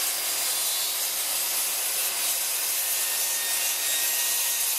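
Circular saw running on a guide rail, cutting through sheet board. The sound is a steady, hissy cutting noise at an even level.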